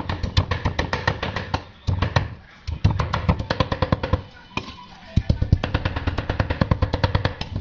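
Meat cleaver chopping rapidly on a thick round wooden chopping block, mincing raw pork, about eight to ten blows a second. The chopping breaks off briefly a few times.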